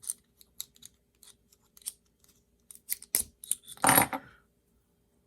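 Small sharp clicks and taps of a metal pen and its refill being handled and put back together, with a louder click about three seconds in and a short clatter at about four seconds.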